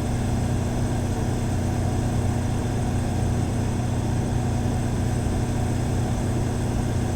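Cummins Power Connect standby generator with the Level 2 sound kit running at 100% load: a steady, even engine hum with a constant low tone.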